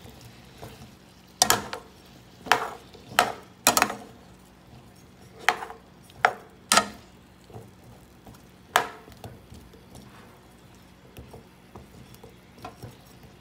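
A spatula stirring and turning sliced cucumbers in a pan, knocking against the pan about eight times at irregular intervals, mostly in the first nine seconds.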